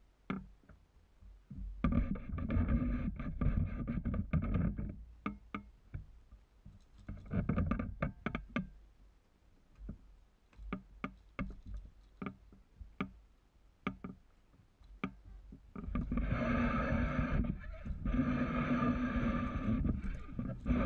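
Lineman climbing a wooden utility pole: sharp knocks and clicks from climbing gear and the fall-restriction strap's hardware against the wood, with stretches of rough scraping and rubbing, loudest in the last few seconds.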